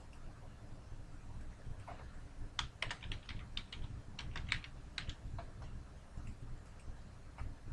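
Typing on a computer keyboard: a quick run of keystrokes from about two and a half to five seconds in, with a few single clicks before and after, over a faint low hum.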